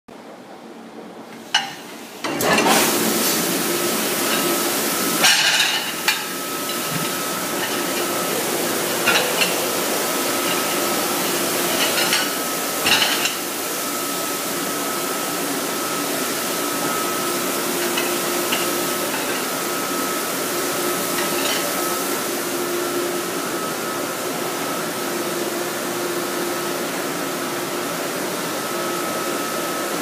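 Commercial conveyor dishwasher running: a steady spray hiss with a motor hum and a steady high whine, coming on about two seconds in. A few sharp clatters of plates and plastic dish racks stand out over it.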